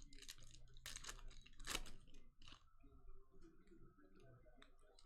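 Faint clicks and light rustling of trading cards being handled and flipped through, with a few sharper ticks in the first couple of seconds.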